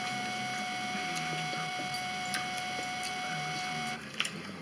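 A steady electronic tone with a few overtones, held at an even level and stopping abruptly about four seconds in, over a few light clicks of forks against plates.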